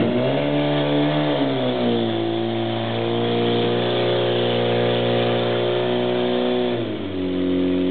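Portable fire pump's engine running at high revs to feed water into the laid-out hoses, its pitch rising at the start, sagging briefly about a second and a half in, holding steady, then dropping near the end.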